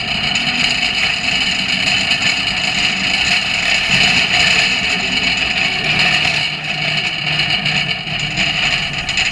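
Metal shopping cart rolling fast on a concrete floor: a steady wheel noise with a constant rattle of the wire basket.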